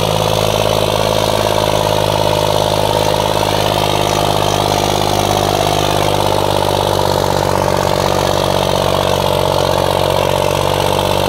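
Farmtrac 60 tractor's three-cylinder diesel engine running steadily under load as it drags two harrows through soft soil.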